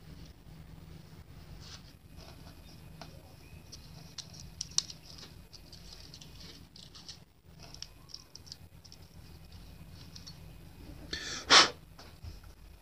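Faint rubbing and small clicks of greasy pneumatic tool parts being wiped clean with a rag, over a low steady hum. Near the end comes one short, loud puff of breath.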